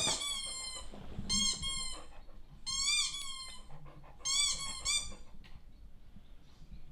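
Squeaky toy sound effect played through a TV: high rubber-toy squeaks in four bursts about every second and a half, some in quick pairs.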